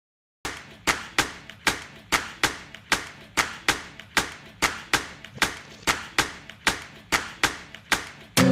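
Sharp, evenly spaced claps or taps, about three a second, starting half a second in after silence: the rhythmic opening of a backing music track. Guitar music comes in near the end.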